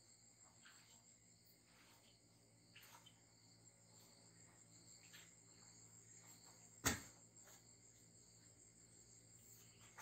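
Near silence: faint room tone with a steady high whine, broken by one sharp click about seven seconds in.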